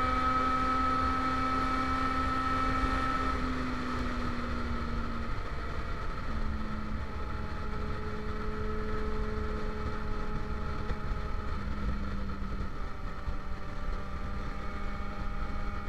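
Motorcycle engine running at a steady cruise heard from the bike itself, its note dropping a step several times, about three and a half, five and eleven and a half seconds in. Wind rumble on the microphone runs underneath.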